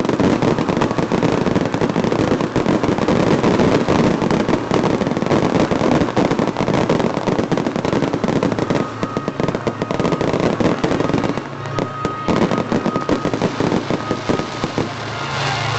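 Fireworks crackling: a dense, rapid stream of pops and bangs that eases for a moment about eleven seconds in, then picks up again.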